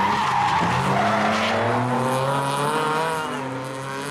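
Drift car's tyres squealing as it slides sideways in smoke, with the engine revving hard and its note rising and falling with the throttle. The squeal is loudest at the start, and the sound eases off near the end as the cars move away.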